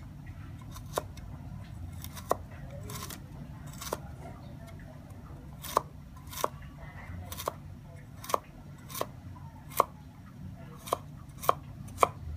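Cleaver chopping carrot sticks into dice on a wooden chopping board, each stroke a sharp knock on the board. The chops come a few seconds apart at first, then settle about halfway through into a steady run of about one and a half a second.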